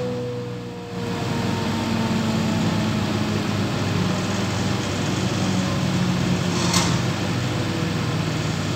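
Woodworking machinery running with a steady hum, with a faint whine that slowly falls in pitch near the start as a machine winds down. A short hiss comes about seven seconds in.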